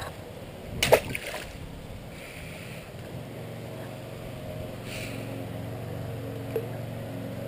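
A PVC-pipe pole smacks onto pool water about a second in, then water laps quietly over a steady low hum.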